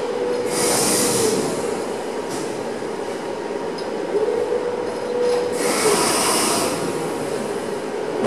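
Motors of a row of LED moving-head lights whirring as the heads pan and tilt together, over a steady hum. A whine glides up, holds and drops back twice, and two stretches of hiss come near the start and again past the middle.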